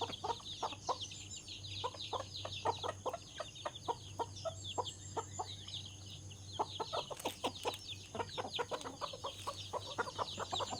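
A flock of chickens clucking and calling continuously, many short calls overlapping, with a faint low steady hum underneath.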